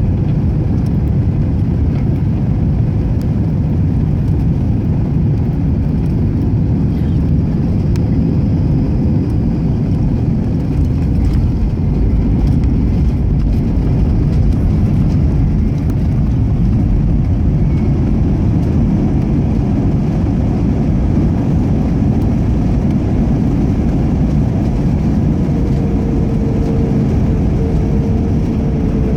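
Steady, loud low rumble of a vehicle in motion, heard from inside, with a steady whine-like tone joining near the end.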